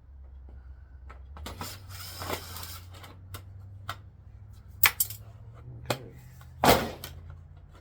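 Clicks, knocks and clatter of plastic and metal parts from a torn-down LCD TV being handled and set down. A scraping rustle comes about two seconds in and the loudest knock near the end, over a low steady hum.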